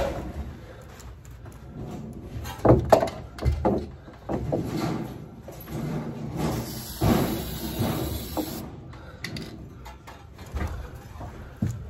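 Fiberglass insulation batt being stuffed and pressed around a foil-wrapped sheet-metal duct: irregular rustling and scraping, with a few knocks, the loudest about three seconds in, and a stretch of hissing rustle a little past the middle.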